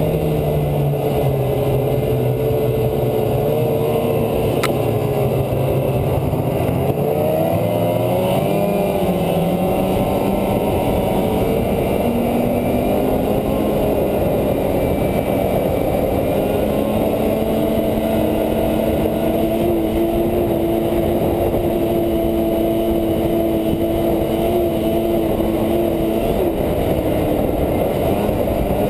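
Polaris 550 snowmobile's two-stroke engine running under way, heard from onboard the sled. Its pitch climbs as it speeds up about eight seconds in, then holds fairly steady. A brief sharp click comes about four and a half seconds in.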